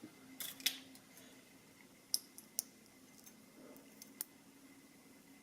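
Small metal lock parts being handled as a challenge padlock is taken apart: about five faint, sharp clicks of pins and tools, spread over the few seconds.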